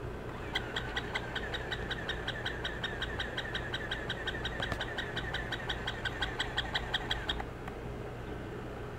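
Battery-operated plush walking dog toy yapping electronically: a fast, even run of identical high yips, about six a second, that starts about half a second in and cuts off suddenly after some seven seconds.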